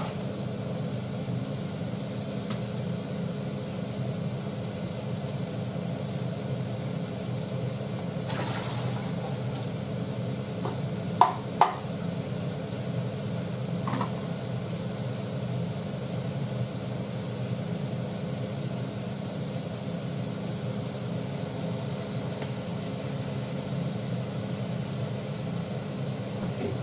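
Steady hum of a kitchen fan, with occasional light knocks of kitchenware, a sieve and plastic containers being handled; two sharp clinks near the middle are the loudest sounds.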